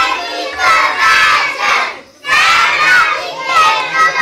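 A group of young children chanting loudly together in unison, in phrases with a short break about two seconds in.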